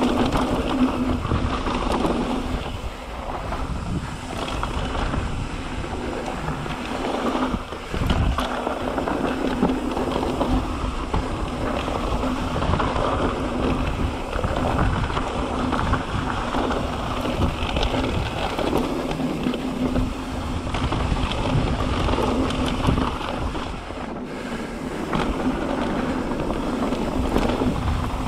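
Mountain bike riding down a dirt singletrack: tyres rolling over dirt and rocks and the bike rattling over bumps, with wind buffeting the microphone throughout.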